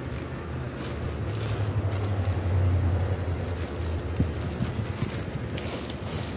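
A steady low rumble that swells about two to three seconds in, with brief rustling of thin plastic produce bags being handled near the end.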